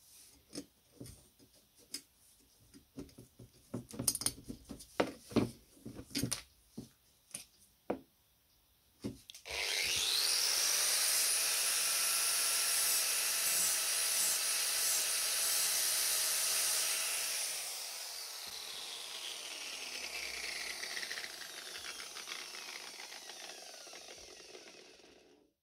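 Scattered knocks and clicks of rusty steel parts being handled on a wooden bench. Then, about nine seconds in, an angle grinder spins up with a rising whine and grinds the head off a rivet on a steel lever. Near the halfway point it is switched off and slowly winds down in pitch.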